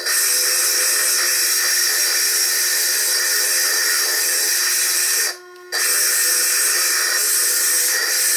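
Foredom bench lathe running a core drill against a stone being ground into a sphere, with the audio sped up threefold: a steady high hiss with a held whine. It cuts out for about half a second midway.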